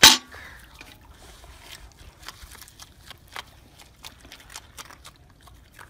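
Sea otter crunching and eating snow, a run of small crackling clicks over faint water lapping, after one sudden loud noise at the very start.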